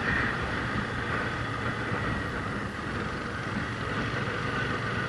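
Motorcycle on the move: a steady mix of engine and wind noise with no distinct events.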